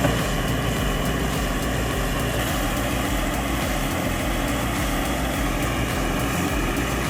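Heavy earthmoving machine's diesel engine running steadily under load, a low even drone.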